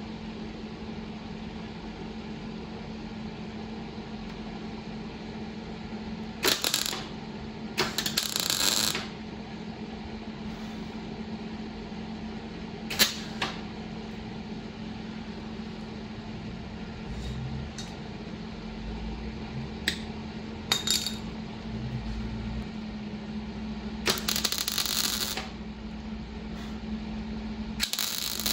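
Scattered metallic clinks and short clattering spells, about seven over the stretch, a few seconds apart, over a steady low hum.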